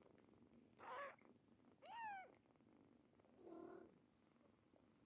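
Kitten mewing three times in short, high calls, the middle one rising and falling in pitch, over soft purring.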